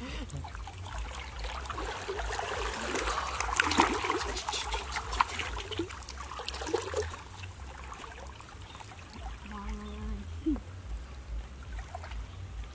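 Water splashing and sloshing as people wade through a shallow stream, busiest a few seconds in and calmer later.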